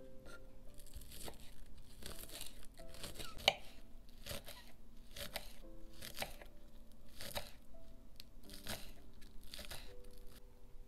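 Chef's knife slicing crisp green onions on a wooden cutting board, a crunchy cut about once a second, with one sharper knock of the blade partway through. Soft background music plays underneath.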